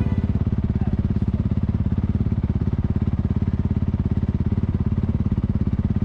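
Honda CRF450RL's single-cylinder four-stroke engine, breathing through a Yoshimura RS-4 full exhaust, idling at a steady, fast, even putter.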